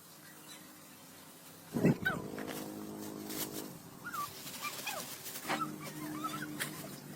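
An animal calling: long, drawn-out low-pitched calls starting about two seconds in, with a second call near the end and short high chirps scattered throughout.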